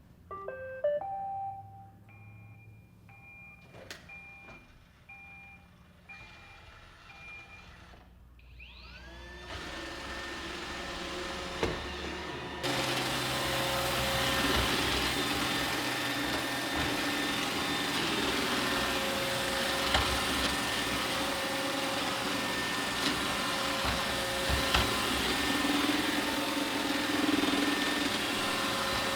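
Roomba 800 Series robot vacuum starting a cleaning run: a short rising series of electronic tones, then its motors spin up with a rising whine about nine seconds in. From about thirteen seconds the vacuum and brushes run at full power with a loud steady whir.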